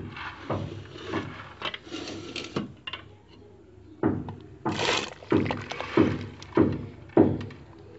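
Cookware being handled at a pot of broth: irregular knocks and thuds, quieter at first, then a run of loud knocks about every half second in the second half.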